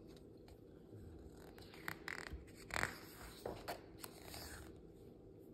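A picture book's page being turned by hand: a few faint paper rustles and scrapes, between about two and five seconds in.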